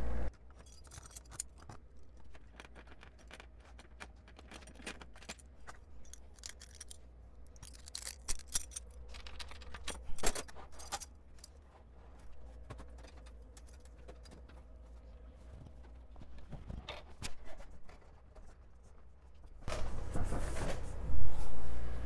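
Scattered light clinks, taps and rattles of small metal brewing gear and tools being handled, with a louder knock near the end.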